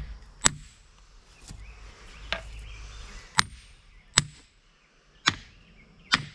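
Sharp knocks driving a sledgehammer head down onto a new wooden handle to seat it: about seven irregularly spaced blows, some with a brief metallic ring.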